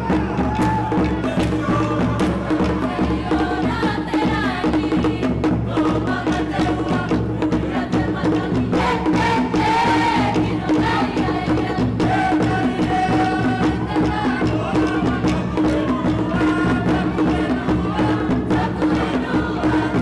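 Polynesian drum-dance music: wooden log drums beating a fast, steady rhythm, with voices singing over it.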